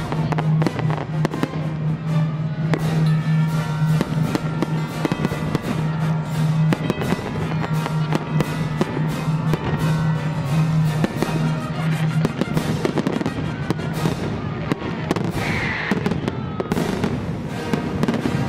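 Fireworks display: aerial shells bursting in rapid bangs and crackling, over music. A steady low note in the music stops about twelve seconds in.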